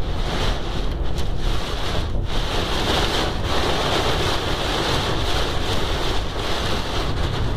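Heavy storm rain and wind beating on a moving car, heard from inside the cabin as a steady, dense hiss with road noise underneath.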